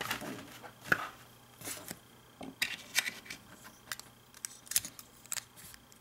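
Plastic LEGO bricks clicking and tapping as they are handled and pressed together: a scattering of sharp little clicks.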